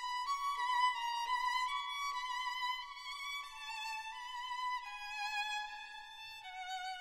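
Background music: a violin playing a slow melody of held notes with vibrato, moving lower toward the end.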